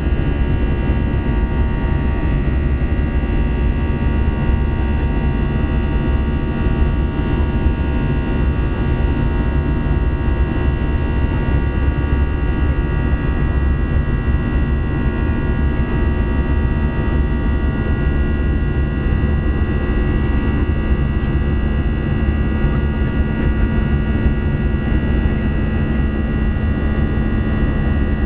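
Airbus A320 jet engines heard from inside the cabin at steady power: a deep, even rumble with a set of unchanging whining tones over it.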